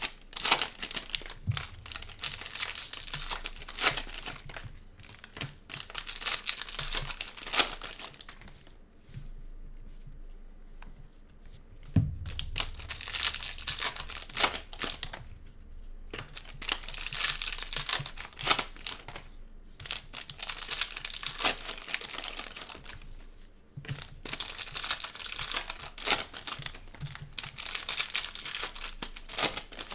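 Shiny foil trading-card pack wrappers crinkling and tearing open in gloved hands, in bursts with short pauses, and a thump about twelve seconds in.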